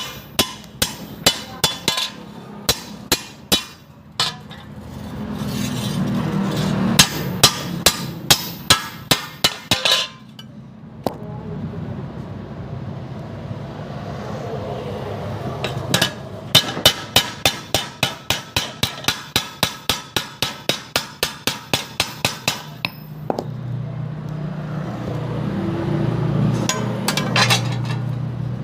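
Hammer blows ringing on metal in a blacksmith's shop, struck in steady runs of about three a second with short pauses between runs. A steady low hum fills the pauses.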